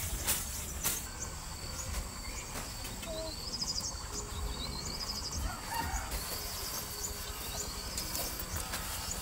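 Outdoor ambience: a bird sings a short rising trilled phrase several times over a steady high insect drone, with a couple of sharp clicks in the first second.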